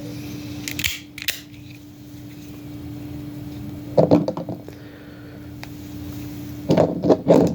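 Mini OTF (out-the-front) switchblade knife firing its blade out and snapping it back, making sharp mechanical clicks in groups: two about a second in, a cluster about four seconds in, and several more near the end.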